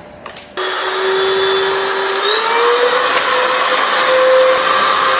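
Handheld mite-remover vacuum cleaner switched on: the motor starts abruptly with a rush of air, and its whine rises in pitch as it spins up, then runs steadily.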